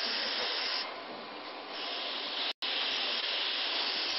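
High-pressure oxygen facial machine's spray gun hissing steadily as it sprays a fine water mist. The hiss turns softer for about a second near the start, then comes back full, with a split-second dropout in the middle.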